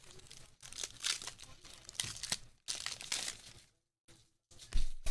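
Foil wrapper of a basketball trading-card pack crinkling and tearing as it is opened and handled, in several short crackly bursts, with a duller knock near the end.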